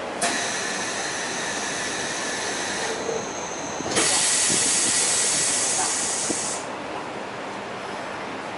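Compressed air hissing on a subway train, one hiss of about three seconds and then, after a short pause, a louder one of about two and a half seconds that fades away.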